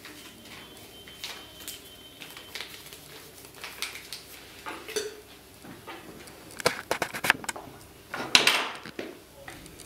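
Paper rustling as a folded sheet is pushed into a glass jar, then a few sharp clinks and a short scrape as the jar and its lid are handled and closed on a wooden table.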